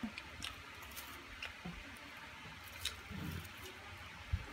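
Quiet handling sounds of people eating at a table: a few faint crinkles and clicks from a plastic bread bag being handled. Near the end come two soft low thumps.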